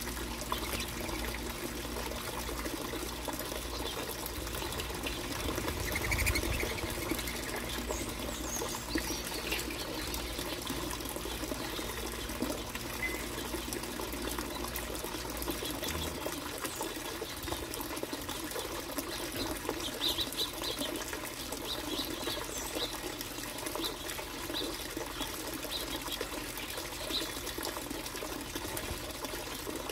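Finches giving short, scattered chirps over a steady background hiss. A low rumble under it drops away about halfway through.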